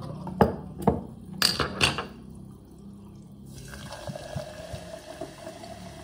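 A few sharp clicks and knocks of glass in the first two seconds, then, from about three and a half seconds in, sparkling mineral water pouring steadily from a glass bottle into a glass jug of fruit ice cubes, fizzing as it fills.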